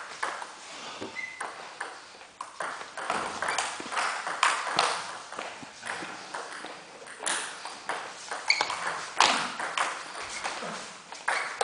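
Table tennis ball clicking off the bats and the table during rallies: a quick, irregular series of sharp ticks.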